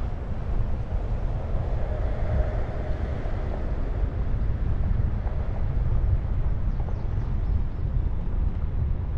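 Car rolling slowly across a gravel lot, heard from a hood-mounted camera: a steady low rumble of the car and its tyres, with wind buffeting the microphone.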